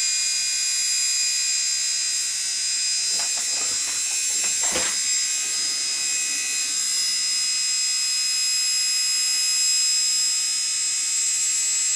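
Arcelik 2806850500 washing machine motor running on DC power, a steady high-pitched whine. There is a brief knock or rattle near the middle.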